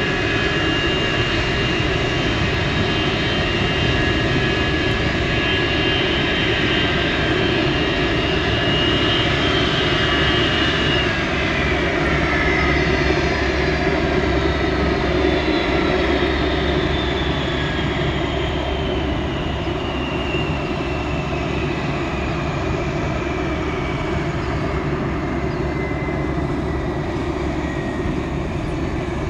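Boeing 727-225F's Pratt & Whitney JT8D turbofan engine shutting down: its steady whine holds for about ten seconds, then falls slowly in pitch as the engine spools down. A low rumble continues underneath.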